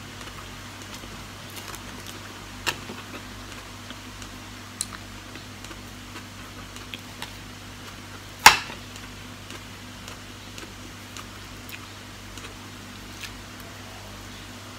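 Eating a salad with a metal fork: scattered light clicks of the fork against the bowl, with one sharp clink about halfway through. A steady low hum runs underneath.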